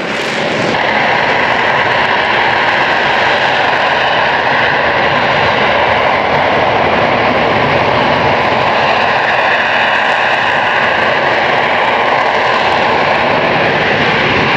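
Harrier GR7 jump jet's Pegasus turbofan engine, running loud and steady, with a steady high whine over the jet noise; it swells up in the first second.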